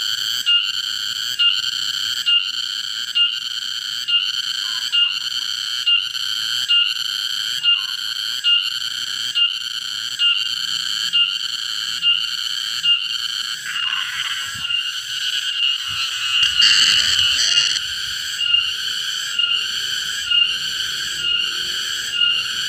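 Green cicada calling loudly: a shrill, steady buzz that pulses a little faster than once a second. About two-thirds of the way through, the call turns into a harsher, louder buzz for a couple of seconds as the insect is caught by hand, then the pulsing call returns.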